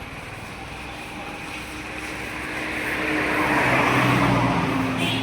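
A motor vehicle's engine running and coming closer: a steady hum with a hiss of road noise that grows louder, peaks about four seconds in, then begins to fade.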